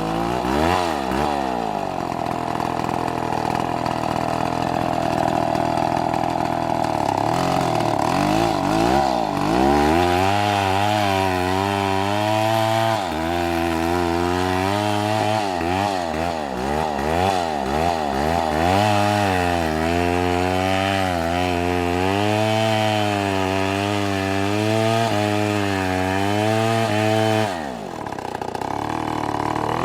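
Gasoline chainsaw cutting wood, its engine speed rising and falling as the bar works through the cut. Near the end the throttle is released and the pitch drops away.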